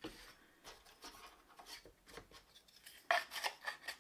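Thin bamboo boards and dividers of a tray holder clicking and scraping against each other as they are slotted together by hand, with a louder run of clicks about three seconds in.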